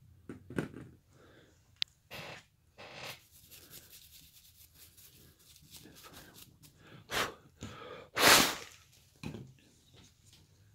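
Hand-carving cuts in basswood with a knife and gouge: a string of short, irregular scraping slices through the wood, with a louder rush of noise lasting about half a second, about eight seconds in.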